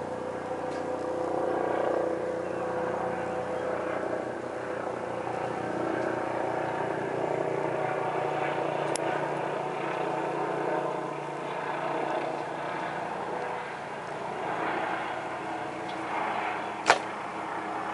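Helicopter flying low overhead, its rotor and engine noise a steady drone that swells a little and eases off. A sharp click near the end.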